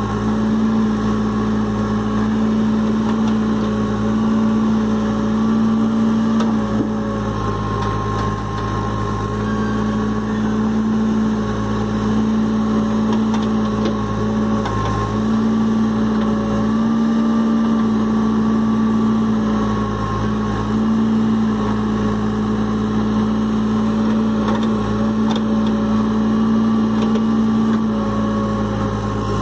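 New Holland backhoe loader's diesel engine running steadily as the backhoe arm digs. Its note dips briefly and recovers every few seconds as the arm works.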